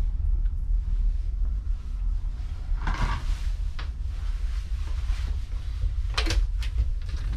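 Steady low hum of the ferry throughout, with a rustle about three seconds in and a few sharp metallic clicks a little after six seconds from the cabin door's handle and latch being worked.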